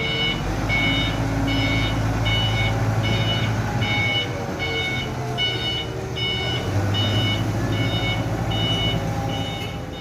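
10-ton forklift's backup alarm beeping steadily, about three beeps every two seconds, over the low, steady running of the forklift's engine.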